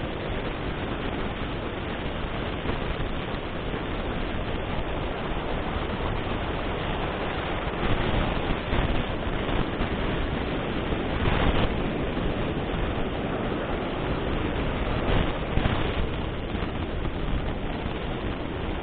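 Ocean surf washing onto a beach with wind rushing over the microphone, a steady noise that swells a few times as waves break.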